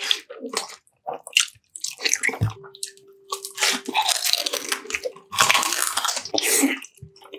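Close-miked mukbang eating sounds: crunchy bites and wet, squishy chewing in short separate bursts, denser in the second half, with a thin steady tone under part of it.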